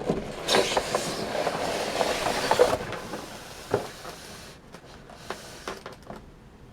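Cardboard toy box being opened and its packaging handled: rustling and scraping for the first few seconds, then a few light clicks and knocks.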